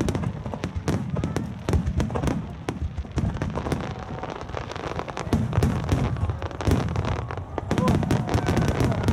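Fireworks display: aerial shells bursting and ground-fired comets launching in a rapid barrage. A dense string of sharp bangs and cracks runs over a continuous low rumble.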